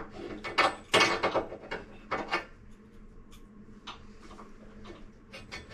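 Clatter of hand tools and faucet parts being handled: a run of sharp knocks and some scraping in the first two and a half seconds, then a few faint ticks.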